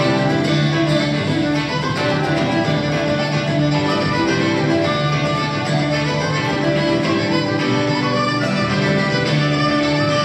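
Traditional Irish dance music led by fiddle, a lively tune with a steady beat.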